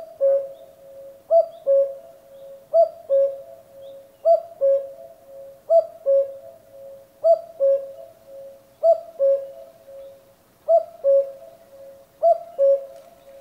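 Common cuckoo calling its two-note "cuck-oo", the second note lower than the first, repeated evenly about every second and a half.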